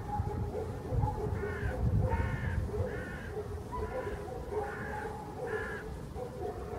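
A crow cawing, a run of about six harsh caws roughly one every three-quarters of a second.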